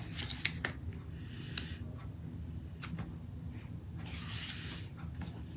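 Paper and planner pages being handled: a few light clicks and taps, and two short rustling scrapes, the first about a second in and a longer one about four seconds in.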